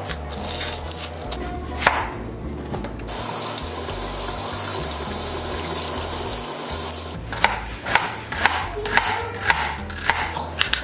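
A kitchen tap running steadily onto a red onion and into the sink for about four seconds. The water is bracketed by a chef's knife on a plastic cutting board: a couple of knocks near the start, then a run of chopping strokes, about two a second, near the end.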